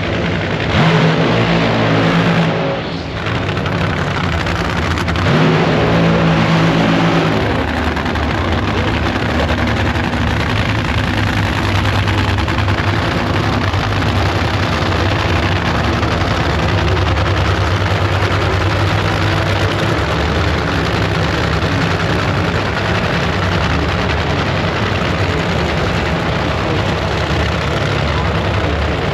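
Drag racing car engine running loudly. It swells twice in the first several seconds, then holds a steady low note under heavy noise.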